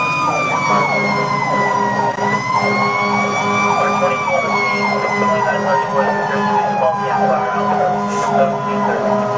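Fire engine sirens heard from inside the cab on an emergency run: a fast yelp of about three sweeps a second over a slower wail that rises and then winds steadily down through the second half, with the truck's engine droning underneath.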